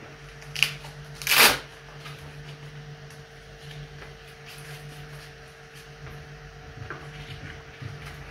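Handling noise: rustling and a few clicks as the jetpack's battery packs and power cables are worked on by hand, with one louder brief brush about a second and a half in. A faint low steady hum runs underneath.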